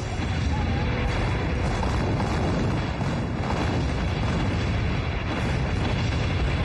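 Artillery barrage in a war-film soundtrack: a dense, continuous rumble of shell explosions with deep booms. Music is faint underneath.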